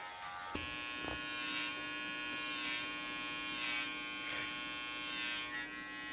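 Electric hair clippers start with a click about half a second in, then run with a steady buzz that swells slightly now and then.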